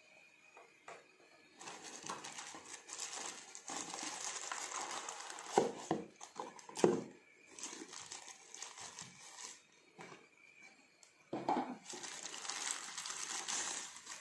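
Packaging being handled: plastic and packing material crinkling and rustling in several stretches, with a few sharp knocks around the middle and again near the end.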